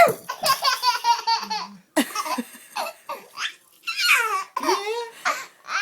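A baby belly-laughing in repeated bursts of quick pulses, set off by a mock sneeze that ends just as the laughter starts.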